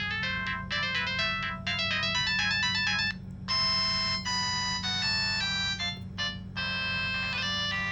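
Samsung SGH-T108 mobile phone playing a polyphonic ringtone melody: several notes together, quick short notes at first, then held chords after a brief break about three seconds in, with another short break near six seconds. A steady low hum runs underneath.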